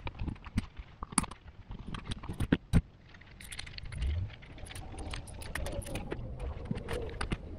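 Sharp clicks and clinks as tools and the cut-open metal oil filter canister are handled on a workbench. From about three seconds in, a paper shop towel rustles as the pleated paper filter element is pulled out of the canister.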